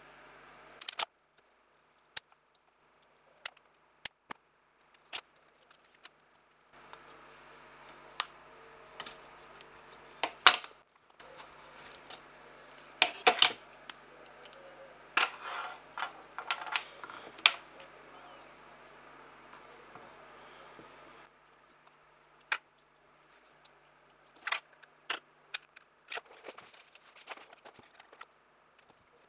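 Small clicks and taps as a wooden clothespin and its wire spring are handled and fitted together by hand, with a faint steady hum in the background that stops and starts.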